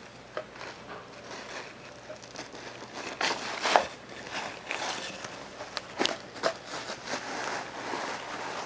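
Irregular rustling, crinkling and clicks of a cat wand toy being handled as its tangled string is worked loose, with a few sharper clicks about three and a half seconds in and again around six seconds.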